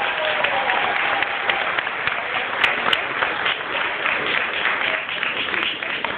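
Audience applauding, dense clapping throughout, with a few voices in the crowd.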